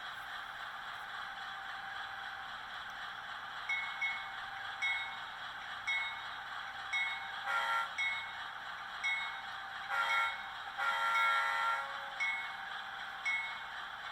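Sound decoder in an HO-scale GE Dash 8-40CW model locomotive playing a diesel engine idling. About four seconds in the locomotive bell starts ringing at roughly one strike a second. The horn then sounds: a short blast near the middle, and a short blast followed by a longer one a couple of seconds later.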